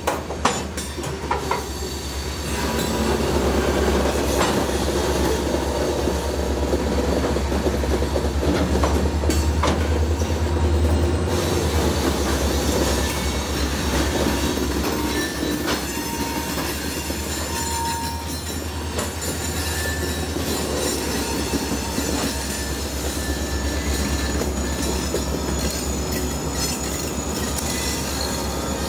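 Diesel locomotives of a freight train running and moving slowly along the track with hopper cars, a steady low engine rumble over rail noise, loudest for several seconds near the start.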